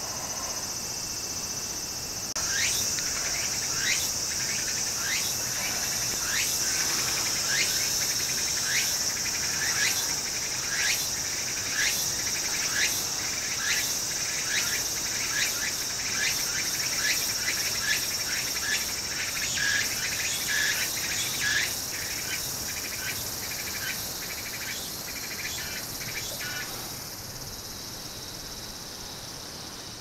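A cicada singing: a steady high buzz with a pulse about one and a half times a second. It starts abruptly a couple of seconds in and breaks off a few seconds before the end.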